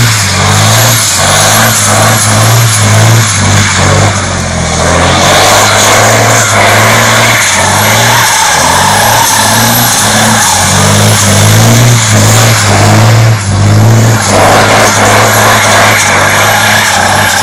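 Semi-truck tractor's diesel engine revving up and down under hard load as the truck drifts, with the spinning rear tyres squealing and hissing on the asphalt.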